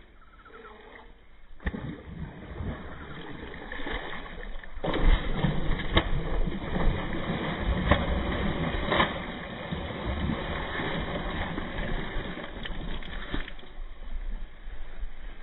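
A large hooked fish thrashing at the surface of a shallow stream, its body slapping and churning the water in a run of heavy splashes from about five seconds in, easing off near the end.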